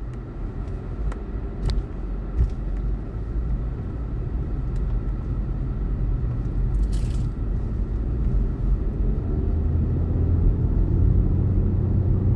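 Car cabin rumble from the engine and road, low and steady, growing gradually louder. A steady low hum comes in and strengthens about two-thirds of the way through, with a few faint clicks.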